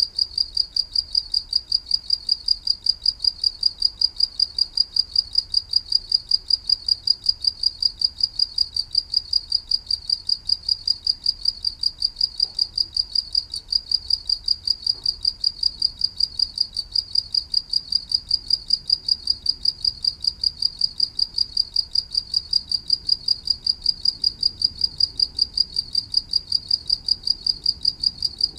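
Cricket chirping steadily: a high, evenly pulsing trill of several chirps a second that never breaks.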